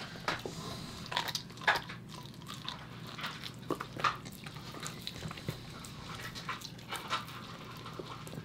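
A corgi gnawing on a raw meaty bone: irregular crunches and clicks of teeth working the bone.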